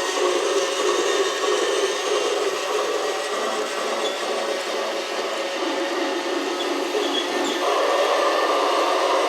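Toy train running: a steady whir from its small motor mixed with its built-in train sound effects, shifting in tone about three seconds in and again near the end.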